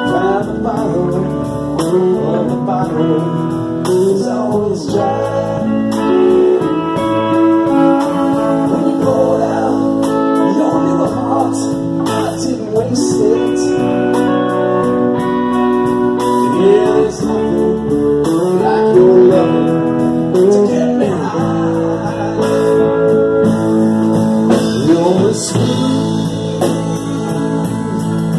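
Live band music: amplified electric guitars playing with a man singing.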